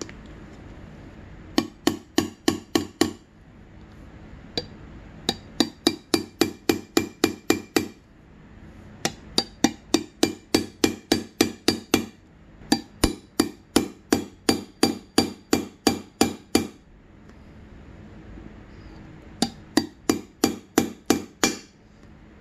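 Hammer tapping a steel deep socket used as a seal driver, seating new water pump seals into the aluminium engine cover of a 2006 Honda CRF250R. The taps come in five quick runs, about five a second, with short pauses between them.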